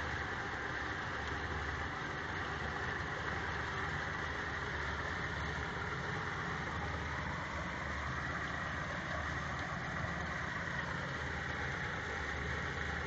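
A pontoon boat's motor running steadily while underway, under an even rush of wind and water.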